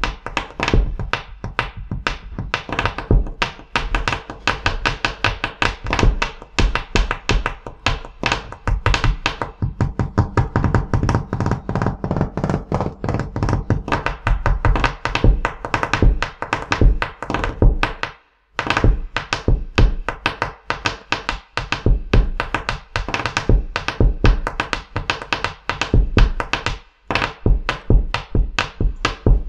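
Bare hands drumming fast on a wooden tabletop with knuckles, fists and fingertips: a dense, rhythmic run of knocks and taps. It breaks off for a moment about 18 seconds in and again near 27 seconds.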